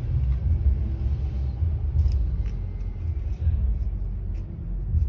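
Low, uneven background rumble with a few faint light clicks.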